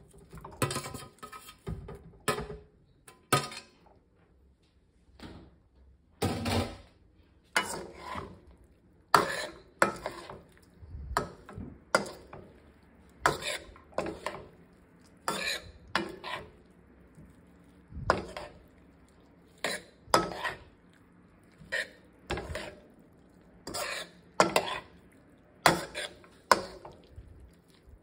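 Metal spoon scraping and knocking against a stainless steel pan while cauliflower and vegetables are stirred in sauce, in short strokes one to two a second with a few brief pauses.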